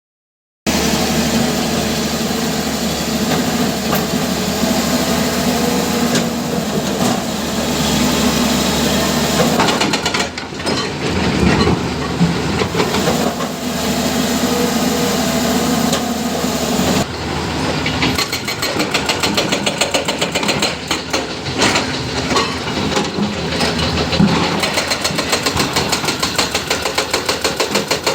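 Hyundai hydraulic excavator's diesel engine running steadily, its pitch and load shifting a few times as the machine works, with occasional knocks. Near the end a fast, even pulsing sets in.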